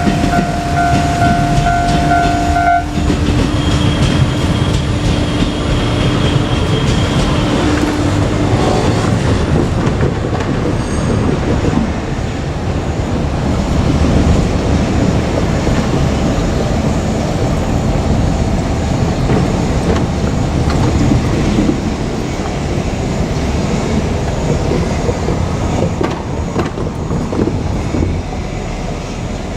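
JR Kyushu KiHa 200 diesel railcar running past: the diesel engine and the wheels clattering over the rails, loudest for the first twenty-odd seconds and then easing as it moves away. A steady tone sounds over it for about the first three seconds, then cuts off.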